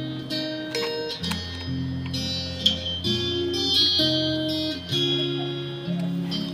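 Background music: plucked and strummed guitar playing held chords, with no singing.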